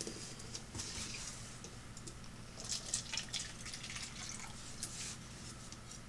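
Water splashing and dripping while pepper plants are watered, in irregular patters that are busiest around the middle, over a steady low hum.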